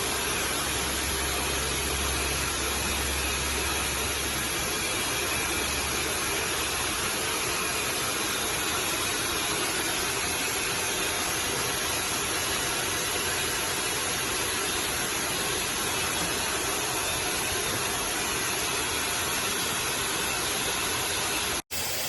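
Electric air pump running steadily, blowing air into the hot tub's inflatable cover bladder, then switched off suddenly near the end.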